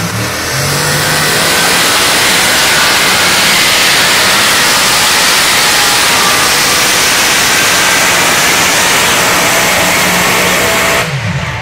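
Pulling semi truck's engine at full throttle under the heavy load of the pull: a loud, steady, dense noise that cuts off suddenly near the end as the pull ends.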